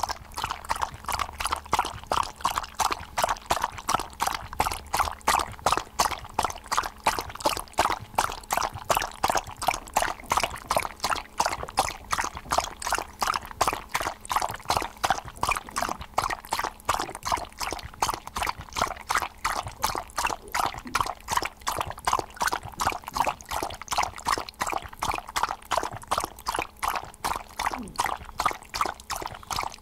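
A dog lapping water from a bowl: quick, evenly spaced wet laps, a few a second, kept up without a break.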